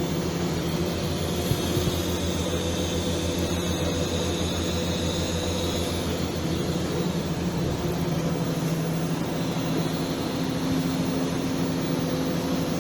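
TIG welding arc on stainless steel pipe, a steady buzzing hum over a continuous hiss.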